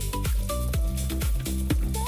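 Electronic background music with a steady dance beat, about four beats a second, and a synth melody.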